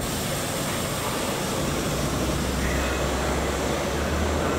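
Subway train running on the far track of an underground station: a steady rumble and hiss of wheels on rail, the low rumble growing heavier about two seconds in.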